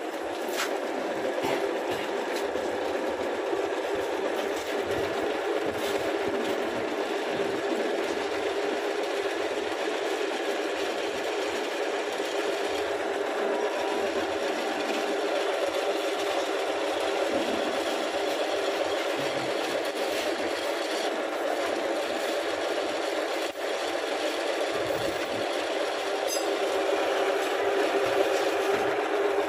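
Metal lathe running steadily while a long reamer rod is fed by hand through an air rifle barrel to ream its bore.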